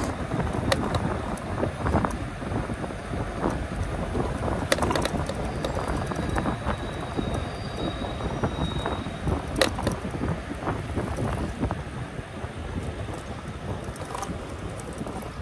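Wind rushing over the microphone and low rumble from riding an e-bike, with a couple of sharp knocks about five and ten seconds in.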